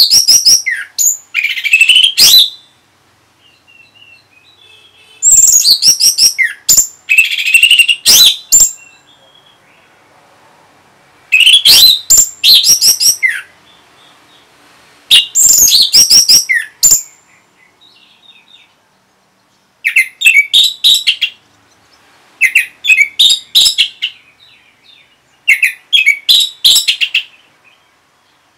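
Orange-headed thrush singing loud, varied whistled phrases with sliding notes, a few seconds apart. About two-thirds of the way in, the phrases change to short runs of rapid, stuttering repeated notes.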